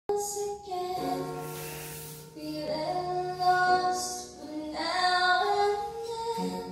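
A song with a high singing voice over instrumental backing, held notes changing every second or so. It starts abruptly at the beginning, out of silence.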